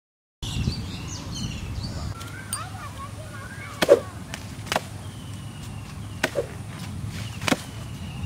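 A blade chopping into the trunk of a banana plant: four sharp strokes about a second or so apart, starting about four seconds in, the first the loudest.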